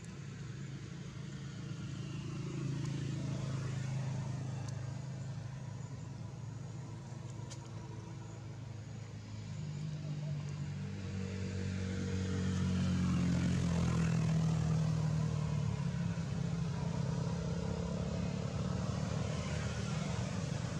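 A motor vehicle's engine running nearby as a steady low hum, growing louder from about halfway through as it draws close and passes.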